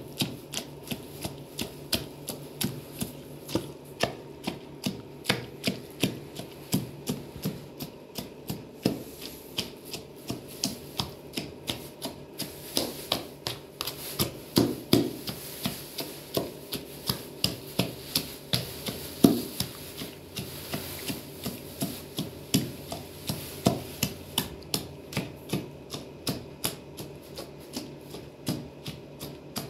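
Pomegranates being crushed in a plastic basin with a hand-held pounder, struck over and over in a steady rhythm of about two blows a second.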